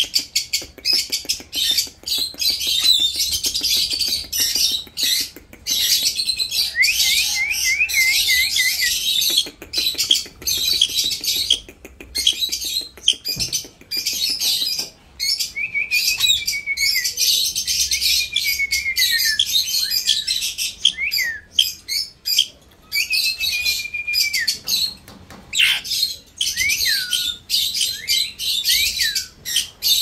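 Indian ringneck parakeets chirping and calling nonstop: dense, rapid high chirps with runs of short downward-sliding whistled calls every few seconds.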